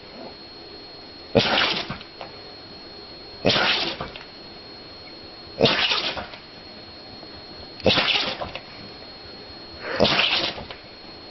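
An animal sneezing again and again: five sharp sneezes, evenly spaced about two seconds apart.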